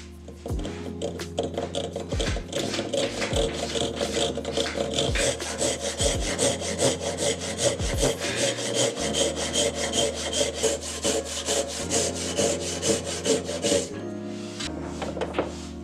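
Japanese pull saw cutting across the end grain of a hard maple block in quick, even strokes. The strokes stop about two seconds before the end. Background music runs underneath.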